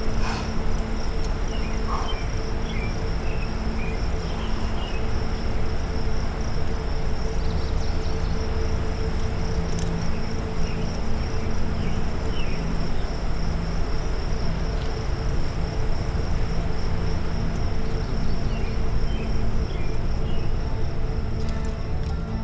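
Insects trilling steadily and continuously in a high pitch over a constant low rumble, with a few short faint chirps here and there.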